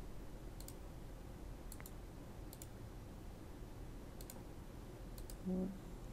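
Light computer-mouse clicks, a few single and several in quick pairs, spaced about a second apart. Near the end a short hummed voice sound is heard.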